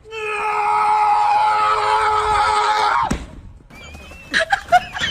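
A cat's long drawn-out yowl, held for about three seconds, falling slightly in pitch and breaking off with a downward slide. Quieter clicks and a high wavering tone follow.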